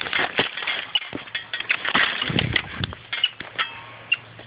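Dry branches and brush crackling and snapping: a quick run of sharp cracks and scrapes, densest around the middle.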